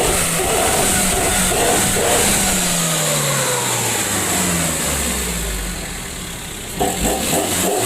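Suzuki Carry's engine revved through an aftermarket SUOS "ngorok" (snoring-tone) exhaust muffler, a deep burbling exhaust note. The revs fall away over a couple of seconds, settle low, then a sharp throttle blip comes near the end.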